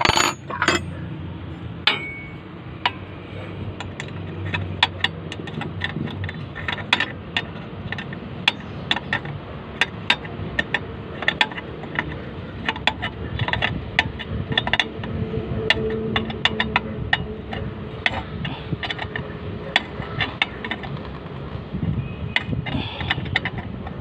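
Metal hand tools clicking and clinking against the cable fitting and linkage on a diesel injection pump: many sharp, irregular taps, with a loud clank at the start and a low steady hum underneath.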